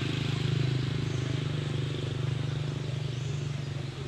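An engine running steadily with a low hum, easing off right at the end.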